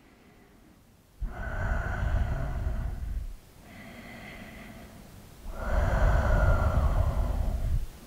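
A person breathing slowly and audibly while holding a yoga balance pose: three long breaths of about two seconds each, starting about a second in, the first and last louder than the middle one.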